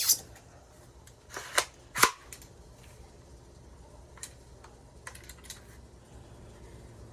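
Handling noises of unwrapping a taped package: three loud sharp snaps in the first two seconds, the middle one with a short tearing rasp, then a few lighter clicks.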